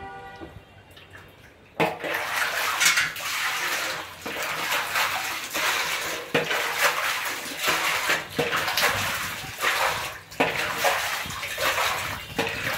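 Wet inner wall of a ribbed plastic water storage tank being scrubbed by hand: a run of rough scrubbing strokes with brief pauses, starting about two seconds in.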